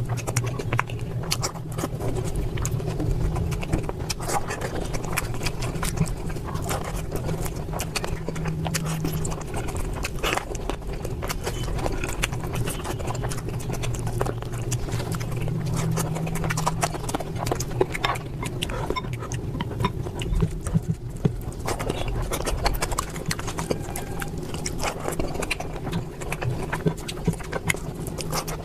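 Close-miked eating: wet chewing and mouth smacking, a dense run of quick irregular clicks over a low steady hum.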